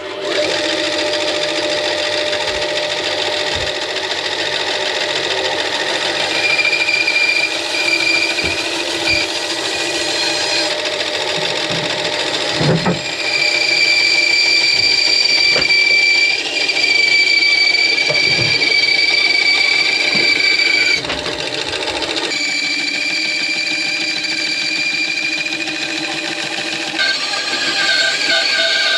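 Titan bandsaw switched on and running steadily, its blade cutting through a length of timber. A high whine comes and goes as the wood is fed into the blade, with a few light knocks.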